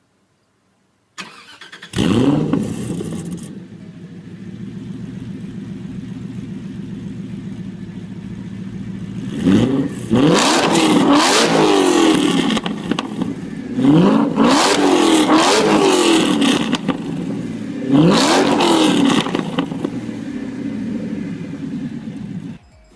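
A supercar engine is started: a brief starter whir, then the engine catches with a sharp rev flare and settles into a steady idle. It is then revved hard in three bursts of quick free-rev blips, each rising and falling in pitch, before it cuts off near the end.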